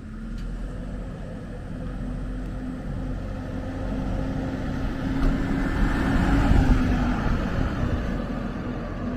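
A small town bus drives close past, its engine humming with a steady tone over tyre and road rumble. The sound grows louder to a peak about six to seven seconds in, then fades as the bus moves away.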